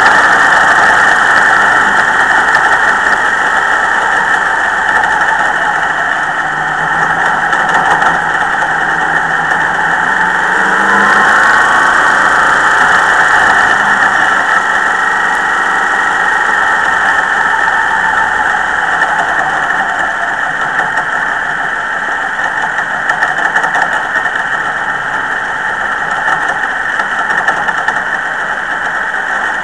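Onboard sound of a dirt-track Modified race car's engine running hard on track, its note rising and falling with the throttle.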